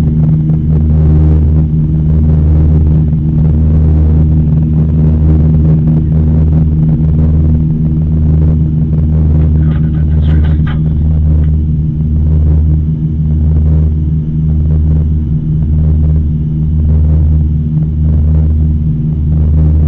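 Turboprop airliner's engines and propellers droning steadily, heard inside the cabin, with a slow throb about once a second as the two propellers beat against each other.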